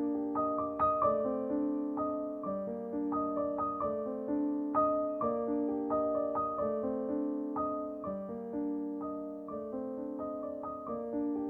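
Solo piano music, single notes struck one after another at a gentle, even pace, each ringing and fading.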